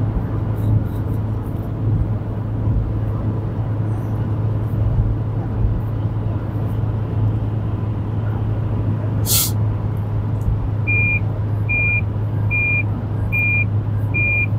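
Road and engine noise inside a car cruising on a highway: a steady low drone. About nine seconds in comes one short hiss, and from about eleven seconds a warning chime beeps evenly, a little more than once a second, five times.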